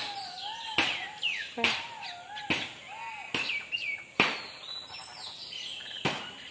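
Sharp knocks repeating steadily, about one a second, with birds calling in wavering whistled phrases between them.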